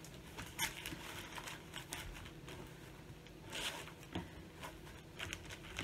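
Faint rustling of cross-stitch fabric and a project bag being handled, with a few light clicks and scrapes. The clearest comes about three and a half seconds in.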